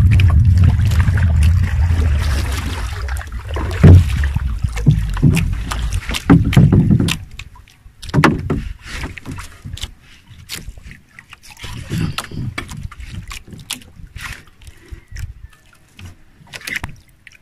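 Wooden paddle strokes splashing water beside a small outrigger canoe, with wind rumbling on the microphone, for about the first seven seconds. After that it drops to a quieter stretch of scattered small clicks and knocks.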